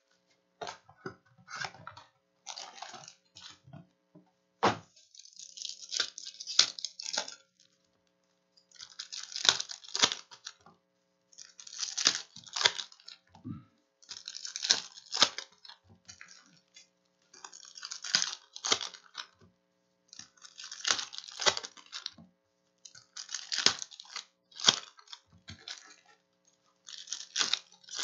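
Foil-wrapped Panini Revolution basketball card packs being ripped open one after another, a crinkling tear about every three seconds, around eight in all.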